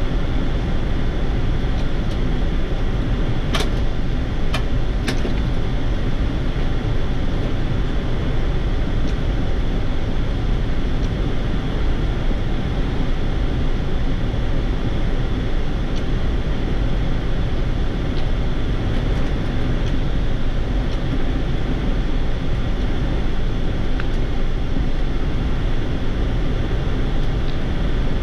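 Steady cockpit noise of a Boeing 787-8 on approach: a constant rush of air with a low hum underneath. Three short clicks come about three to five seconds in.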